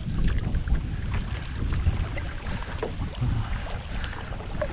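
Wind rumbling on the microphone, the loudest sound, over small splashes and drips from a kayak paddle in calm river water.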